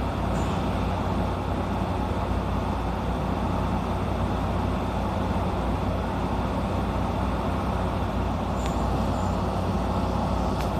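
Steady low hum and whirr of a stationary JR 115-series electric train standing at the platform with its doors open, its onboard auxiliary equipment running. Two faint, brief high chirps sound about nine seconds in.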